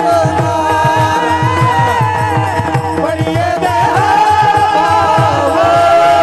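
Devotional Marathi bhajan singing: long held, ornamented sung notes over fast, steady pakhawaj drumming.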